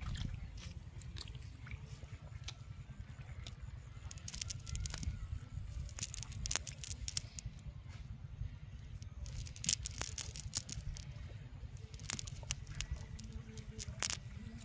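Fishing cast net being handled and picked through by hand: scattered light clicks and rustles of the mesh, over a steady low rumble.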